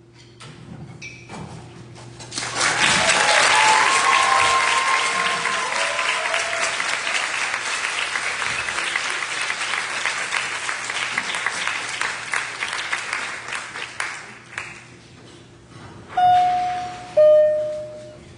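Audience applauding with some cheers and whoops. The applause starts about two and a half seconds in and dies away after about fourteen seconds. Near the end come two short, loud, steady tones about a second apart, the second a little lower.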